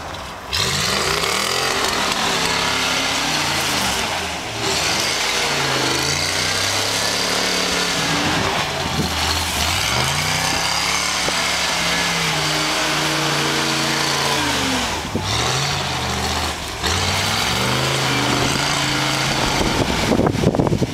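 1973 Toyota FJ40 Land Cruiser's straight-six petrol engine revving up and down again and again as it spins donuts in snow, its pitch rising and falling in long swells over a steady hiss. The revs drop briefly three times, about 4.5, 15 and 16.5 seconds in.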